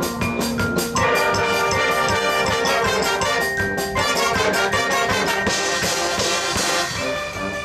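High school marching band playing its competition show: brass chords over a steady drumline beat, with the full brass section coming in about a second in and a cymbal wash near the end.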